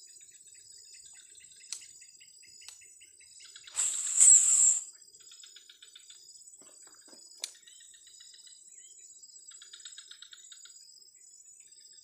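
Steady, high-pitched chorus of insects, crickets among them, with rapid chirping trains. About four seconds in, a loud rushing burst lasting about a second stands above it, and a few sharp clicks sound here and there.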